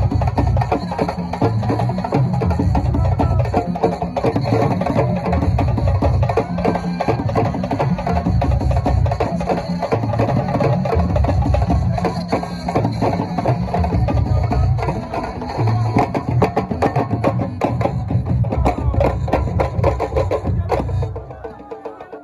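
Music with a pulsing heavy bass and dense, clicking percussion, dropping away near the end.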